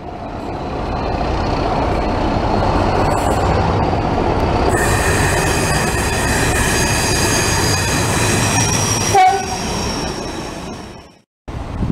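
Diesel locomotive passing at speed close by: a loud, steady rumble of engine and wheels, joined about five seconds in by several high-pitched steady tones. The sound cuts off abruptly near the end.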